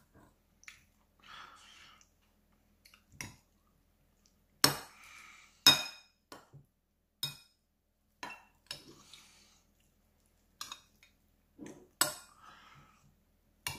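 Metal spoon clinking and scraping against a ceramic bowl while rice and braised pork are stirred and scooped. About a dozen irregular clinks, each ringing briefly, with the loudest two about four and a half and five and a half seconds in. Softer scraping comes between them.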